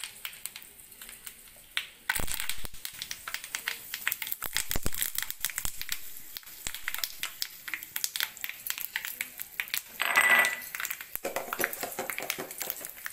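Mustard seeds popping and crackling in hot oil in the cavities of a paniyaram (appe) pan as curry leaves are dropped in: the tempering stage. Irregular quick pops throughout, with a louder burst about ten seconds in.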